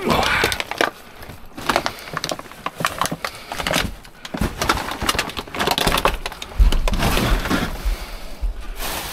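Clattering, knocking and cracking of discarded computer monitors and other scrap being shifted and rummaged through in a dumpster, with heavier low thumps after about six and a half seconds.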